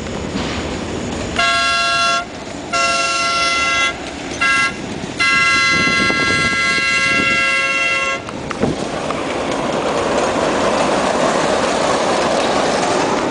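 Park railway train's horn, a chord of several tones, sounding the grade-crossing signal: two long blasts, a short one, then a long one. This is followed by the train rolling past on its rails as a steady rushing rumble.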